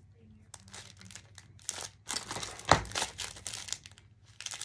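Clear plastic packet crinkling as it is handled, in short irregular bursts, the loudest a little past the middle.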